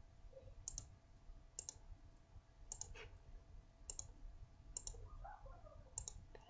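Computer mouse button clicking faintly, about six clicks roughly a second apart.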